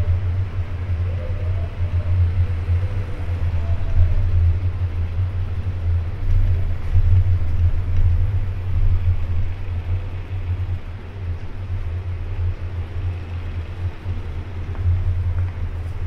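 Steady low rumble of city ambience in a back street, with a faint hiss of street noise above it.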